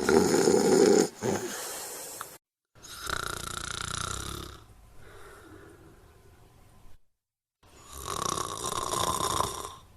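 Snoring: four long, rasping snores, the first the loudest, in separate clips with abrupt cuts to dead silence between them.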